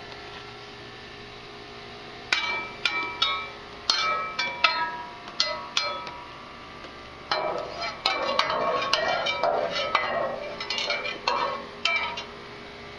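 Irregular sharp metallic clinks and knocks, each ringing briefly, in two runs. The second run, from a little past the middle, comes thicker and faster.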